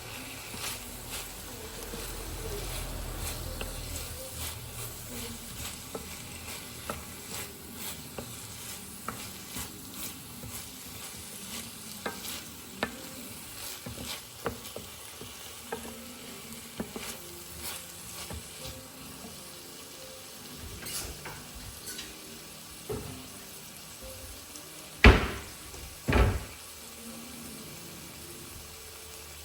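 Food sizzling in a pan while a utensil stirs and scrapes through it, with many small clicks. Near the end come two loud knocks about a second apart.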